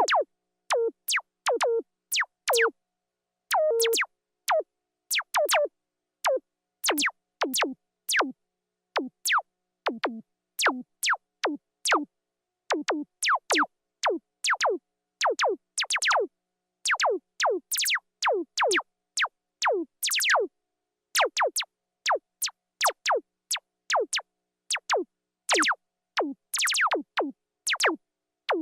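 Synthesized sci-fi laser-gun shots: many short zaps, each a quick sweep falling from high to low pitch, fired about two a second with short silences between, some in quick pairs.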